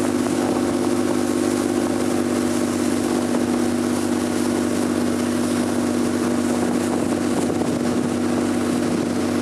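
A motorboat's engine running steadily under way: an even drone with a low hum beneath it, over a constant hiss.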